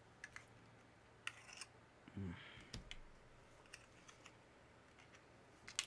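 Sparse sharp clicks and small snaps of a laptop battery pack's hard plastic casing being pried and broken off piece by piece, with a brief low vocal grunt about two seconds in.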